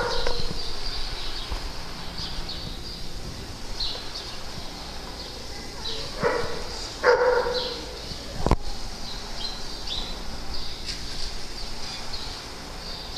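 A dog barks three times: once at the start, then twice a second apart about six seconds in. Brief high chirps run throughout, and there is a sharp click about eight and a half seconds in.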